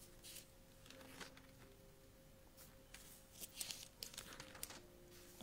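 Thin Bible pages being leafed through: several faint, brief papery rustles over a faint steady hum.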